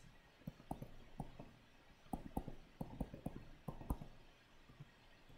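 Faint, irregular taps and clicks of a stylus on a tablet screen as marks are handwritten, a couple of short clicks a second.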